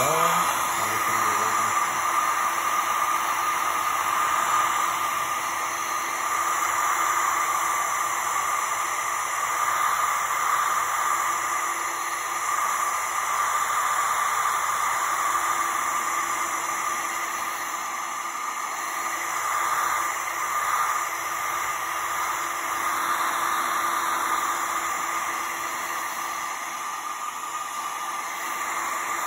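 BaByliss hand-held hair dryer running steadily on one setting: a rushing hiss of blown air with a steady whine from its fan motor.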